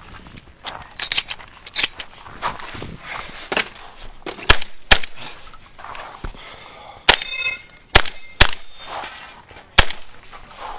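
Shotgun firing a string of about six loud shots between about four and ten seconds in, some in quick pairs, one followed by a short ringing. Lighter clicks and knocks come before the shooting starts.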